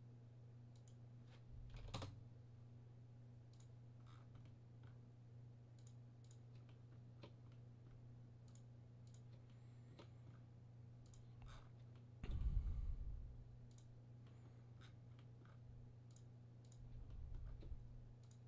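Faint, scattered clicks of a computer mouse and keyboard over a low steady electrical hum, with one louder low thump about twelve seconds in.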